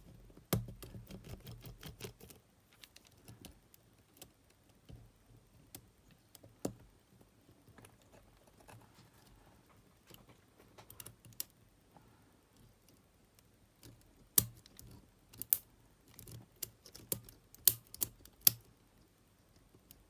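A small screwdriver and metal parts of a cassette tape mechanism clicking and tapping while the tape head is being removed: a quick run of light clicks about half a second in, then scattered sharper clicks in the second half.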